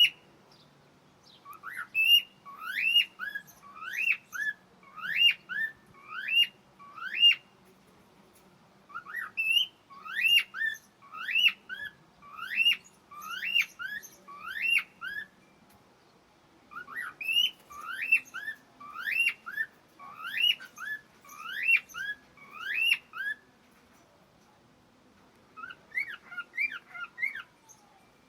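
Cockatiel whistling, repeating a phrase of quick rising notes over and over in four runs with short pauses between them; the last run near the end is fainter.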